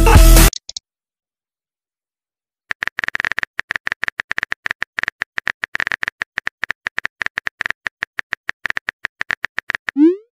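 The last half-second of electronic music, then a phone keyboard typing sound effect: a rapid, even run of light clicks for about seven seconds as a chat message is typed. Near the end comes a short rising swoosh as the message is sent.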